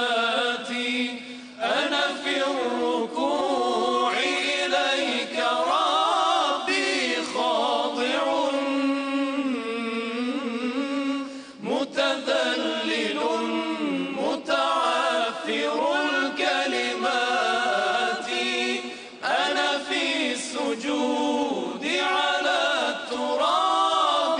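Male vocal ensemble singing a religious chant a cappella, several voices together in long, melismatic gliding lines. It breaks off for a breath a few times.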